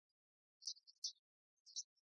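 Near silence, broken by a few faint, short high-pitched clicks about half a second in, at about one second and near the end.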